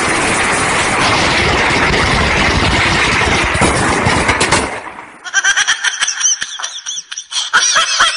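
Loud, steady rushing hiss that cuts off about five seconds in. Then a quick run of short, high-pitched repeated sounds, several a second.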